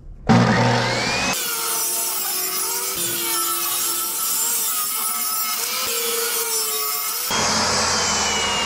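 Ridgid portable table saw starting up and ripping a one-by board lengthwise, the blade cutting under load for about six seconds. Near the end the cut ends and the saw keeps running with a slowly falling whine.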